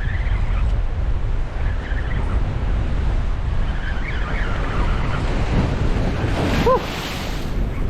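Wind buffeting the microphone over the steady wash of surf on the rocks. A single short squeak sounds about two-thirds of the way in.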